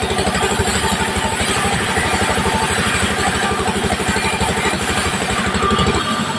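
Sawmill band saw cutting through a wooden beam as it is fed past the blade, with a rapid, even low chugging from the machine under the cutting noise. The low pulsing drops away near the end.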